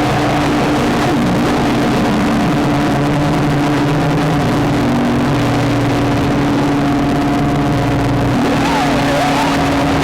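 Electronic noise-synth drone from a Bastl Kastle 1.5 and a looped Krackatone through a Pocket Master pedal: several steady held tones over a dense buzzing noise bed, with warbling pitch glides coming in near the end.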